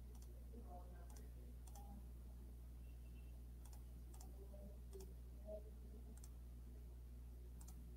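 Near silence with a handful of faint, scattered computer mouse clicks over a steady low hum.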